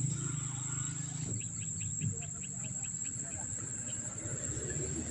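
Night insects trilling steadily in one continuous high-pitched tone. A little over a second in, another caller adds a quick run of about ten chirps, and a low hum sits underneath during the first second or so.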